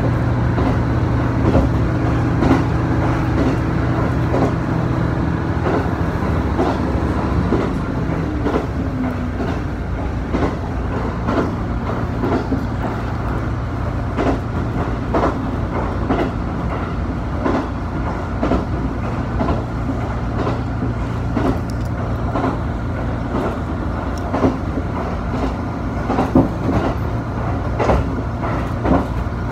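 Diesel railcar running along the line, heard from inside the carriage. A steady engine drone, with one of its tones falling a little about eight seconds in, under the repeated clickety-clack of the wheels over rail joints.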